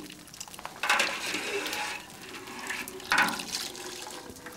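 Whey splashing and dripping back into a copper cauldron as curds are scooped out of it, in two louder bursts about one second and three seconds in. This is the curds being separated from the whey in making soft whey cheese.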